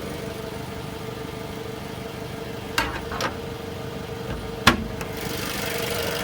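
Jeep Renegade engine idling steadily with a held hum, broken by three sharp knocks in the second half.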